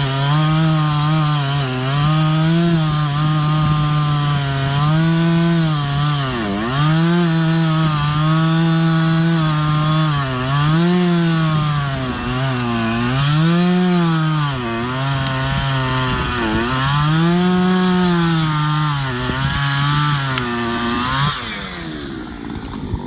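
Two-stroke chainsaw cutting through a large uprooted tree trunk at high revs. The engine note sags again and again as the chain bites into the wood and picks back up between cuts. Near the end the revs drop away.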